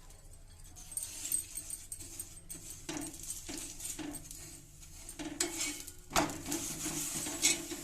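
Metal spatula clinking and scraping on a tawa griddle as a paratha is oiled with mustard oil and fried, with a light sizzle. The sharpest clinks come about six seconds in and again near the end.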